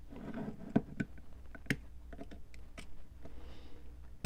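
A small flat-head screwdriver and fingers prying at the plastic case of a Mares Genius dive computer, the outer bracket being spread to free its plastic clips: several light, irregular clicks of tool and plastic.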